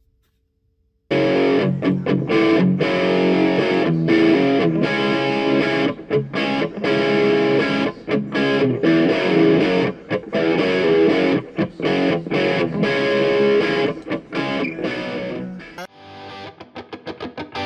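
Outro music: distorted electric guitar rock, starting about a second in and changing near the end to a quicker, evenly pulsing passage.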